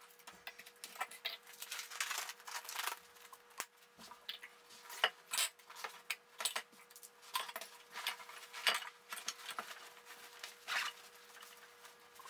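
Faint rustling of a fabric film-changing dark bag, with light clicks and taps of the plastic developing-tank parts and film reel being handled, over a faint steady hum.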